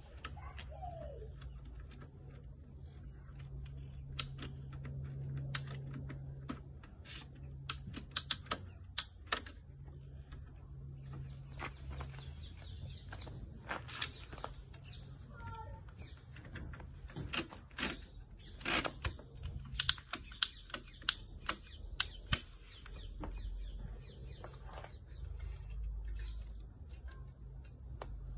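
Irregular sharp plastic and metal clicks and rattles as a road bike is clamped and strapped into a rear-mounted bike carrier's wheel rail and frame arm, coming in two busy flurries, over a steady low hum.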